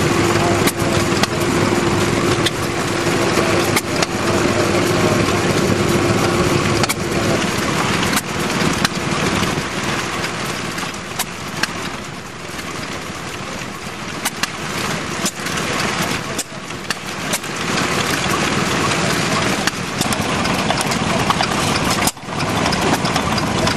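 Vintage stationary engines running, the nearest a Victoria vertical engine built by the Bristol Wagon & Carriage Works, with sharp firing strokes coming at uneven intervals.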